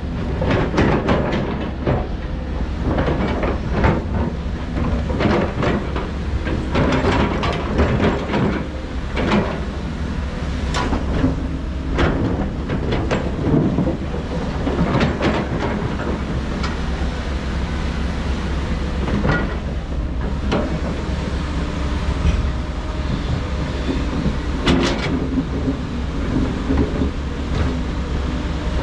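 Heavy diesel construction machinery at work: an engine running steadily under frequent irregular metallic clanks and knocks.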